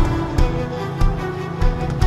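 Orchestral music: sustained chords over a steady low drum beat, four beats in two seconds.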